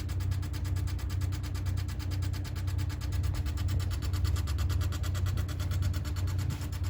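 Panasonic CS-226CF-W room air conditioner running with a rapid, even rattle over a steady low hum: the abnormal clattering noise the unit has developed.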